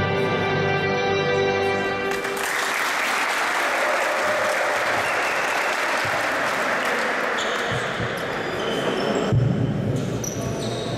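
Music with sustained tones for about two seconds, then cut to people applauding. The applause stops abruptly about nine seconds in, replaced by duller, low-pitched hall noise.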